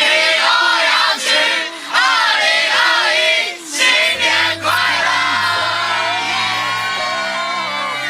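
Loud voices singing and shouting over music. From about four seconds in, a steady bass line and long held sung notes take over.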